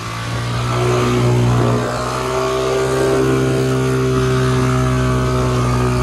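Motorcycle engine held at high, steady revs while the bike sits stuck in a stream crossing with water over its silencer. The throttle is open but the bike is not pulling forward, because its tyre is not turning in the water.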